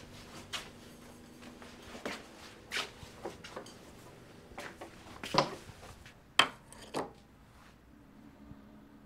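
Irregular short knocks, scrapes and clatters, like objects being handled, about seven or eight of them with uneven gaps. The loudest come about halfway through and again a second later.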